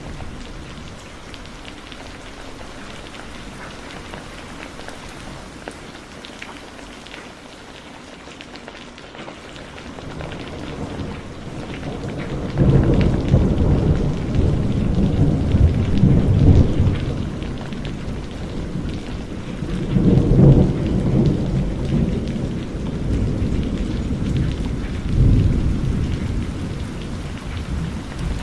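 Steady heavy rain with rolling thunder: a long low rumble builds from about ten seconds in and is loudest for several seconds, then swells again twice before the end.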